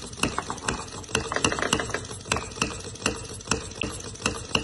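Small homemade Lenoir gas engine built from old sewing-machine parts running, firing with a sharp pop about two to three times a second over a light mechanical clatter.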